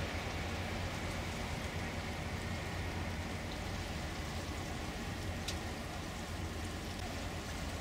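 Steady rushing water noise with a low hum from a river cruise ship under way. A passing electric train's high whine fades out right at the start.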